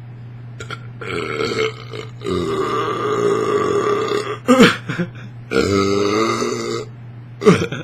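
A man burping loudly and repeatedly after chugging carbonated Diet Coke: three drawn-out burps, the longest about two seconds, with two short sharp ones between.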